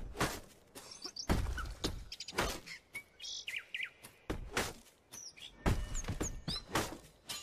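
Short bird chirps, broken up by a series of sharp knocks and thuds.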